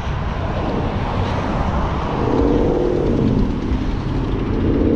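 Steady wind rumble on a moving action camera while riding through traffic, with a humming motor or engine tone that starts about halfway in, drops in pitch, and comes back near the end.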